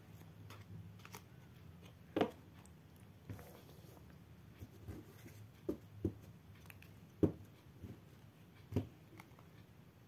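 Collectible toy rider cards being handled: about five faint, sharp taps and clicks spaced a second or more apart, over a low steady hum.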